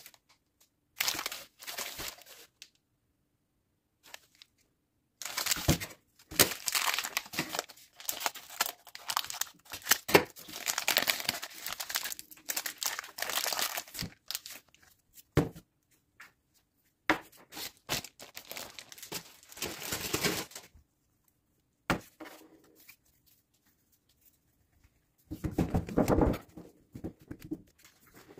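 Crinkling and tearing noises of material being handled by hand. They come in several bursts, the longest lasting about nine seconds, with silent gaps between.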